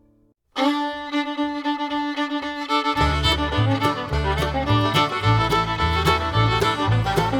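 Background music: a string tune led by a fiddle starts suddenly about half a second in, and a steady bass line joins about three seconds in.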